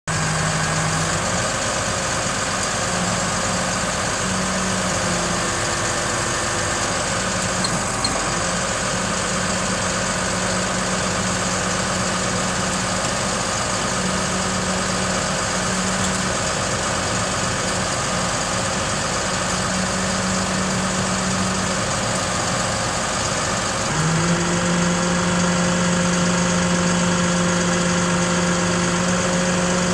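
GMC C8500 knuckle-boom truck's engine idling steadily, with a hum that comes and goes and then steps up and grows louder about 24 seconds in.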